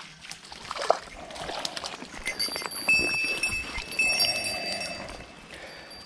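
Water splashing and sloshing as a hooked white-spotted char thrashes on the line, in irregular surges with a sharp splash about a second in. A thin high whine sounds through the middle.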